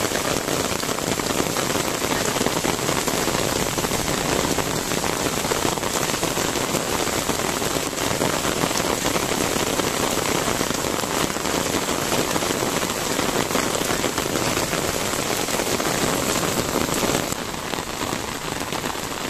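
Steady rain falling on wet concrete paving and garden plants, a little quieter near the end.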